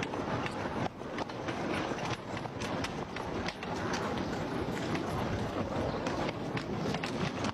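Horse-drawn rail trolley running along its track: a steady rattle and clatter of wheels on the rails, with sharp clicks scattered throughout.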